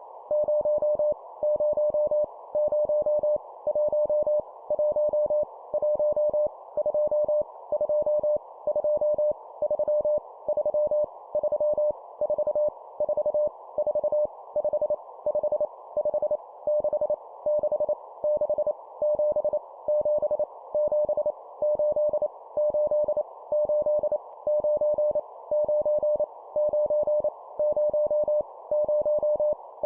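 Morse code (CW) sent at 25 words per minute as a single steady mid-pitched tone keyed on and off in quick dots and dashes, number groups each repeated three times, over a constant background hiss.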